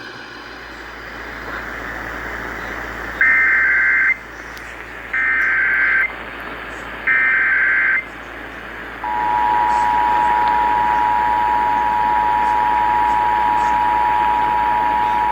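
Emergency Alert System SAME header: three shrill warbling data bursts, each about a second long and a second apart. About nine seconds in, the steady two-tone EAS attention signal starts and holds, all over a constant radio hiss.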